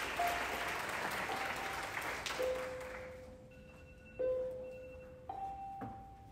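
Audience applauding, the clapping dying away about three seconds in, while background music plays a few long held notes one after another.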